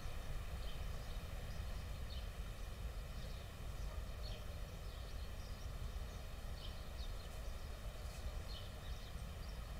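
Outdoor ambience: a steady low rumble with faint, scattered bird chirps every second or so.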